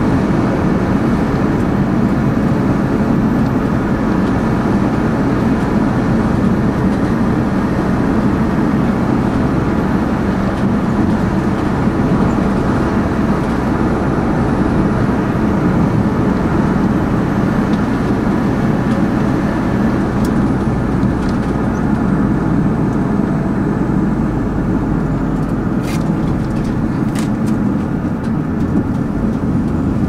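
Steady road and tyre noise with engine hum from a moving car, heard inside its cabin. A couple of short clicks sound a few seconds before the end.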